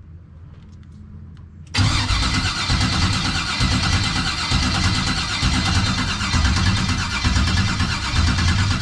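Starter motor cranking a 1989 box Chevy's engine with a rhythmic chug, starting about two seconds in, without the engine catching: a no-start condition. The new starter is a stock Escalade-type unit.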